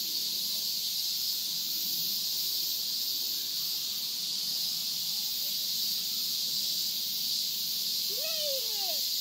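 Steady high-pitched chorus of insects in the trees, with a child's short rising-and-falling squeal near the end.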